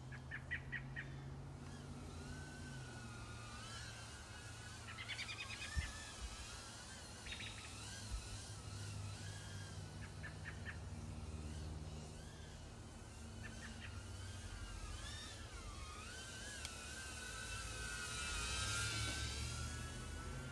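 A tiny whoop drone's motors whining, the pitch wavering up and down with the throttle and getting louder near the end. Birds chirp in short quick trills several times.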